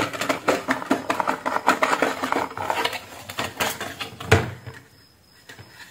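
Plastic and metal parts of an LED ceiling light rattling and clicking as its driver board is pulled out from under a metal cover and its wiring handled, with a sharper click about four seconds in. It goes quiet for the last second or so.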